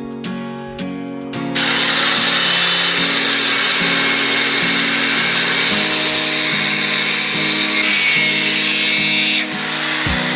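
A power tool starts about a second and a half in and cuts or grinds loudly and steadily, easing off near the end, over background guitar music.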